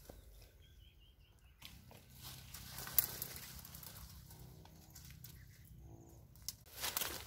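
Dry brush rustling, with a twig snapping about three seconds in. A bird gives a quick run of six or so high chirps near the start, and two short low calls come later.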